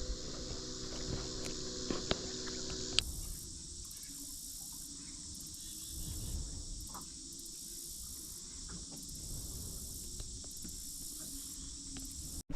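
Insects singing in a steady outdoor chorus. About three seconds in the sound changes abruptly to a very high insect trill that pulses on and off roughly once a second. A faint low hum is heard before the change.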